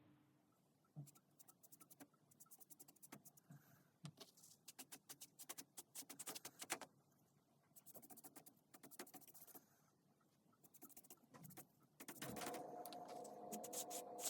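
Faint, quick scratching and rubbing strokes in short bursts, like hand work on a surface. Music with held tones comes in about twelve seconds in.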